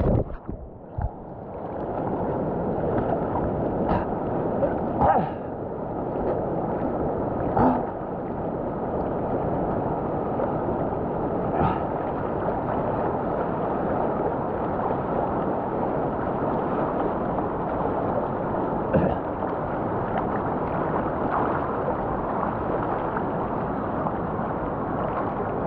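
Fast river water rushing steadily, muffled, with a few sharp splashes or knocks here and there.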